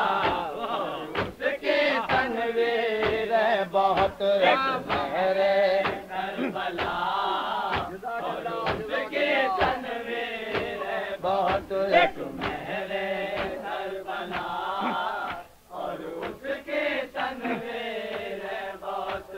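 Men chanting an Urdu devotional salam together on a muffled old tape recording, with a brief pause about three-quarters of the way through.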